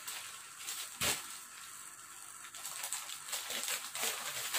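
Plastic mailer bag rustling and crinkling as it is handled and opened, with one short sharp click about a second in.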